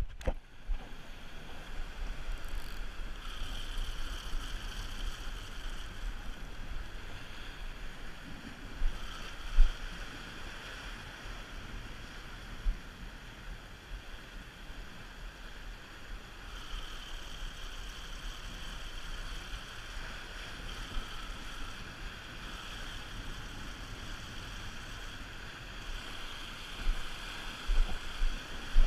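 Sea surf washing over a rocky shoreline, with wind rumbling on the microphone. There are a few short knocks, one near the middle and several near the end.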